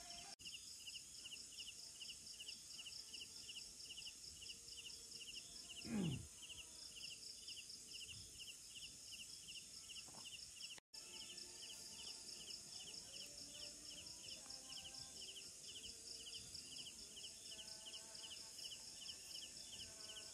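Jungle insects chirping steadily, about four chirps a second, over a steady high buzz. About six seconds in, one louder sound drops sharply in pitch.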